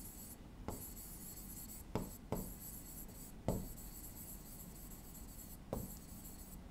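Writing on a board: faint rubbing strokes of the writing tip, with a few sharp taps as it touches down for new letters.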